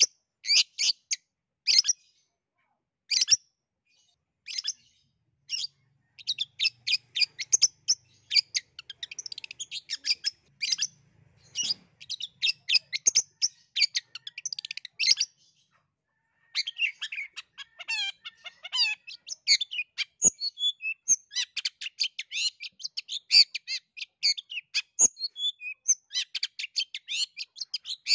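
Long-tailed shrike singing in full voice: fast runs of short, sharp chattering notes with brief breaks, pausing for a moment about halfway.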